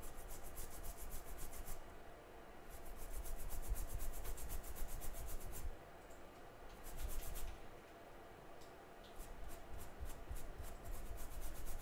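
A small brush scrubbing quickly back and forth over a freshly reballed A10 CPU, several strokes a second, in about four bursts with short pauses between them.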